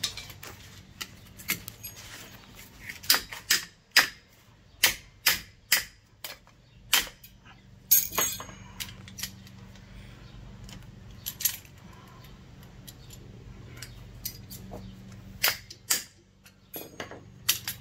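Irregular sharp metallic clicks and clanks, a dozen or so spread unevenly, as brake caliper parts, slide pins and pads are handled and set down, over a faint steady low hum.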